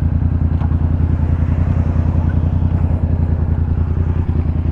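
Motorcycle engine idling steadily, a fast, even low pulsing.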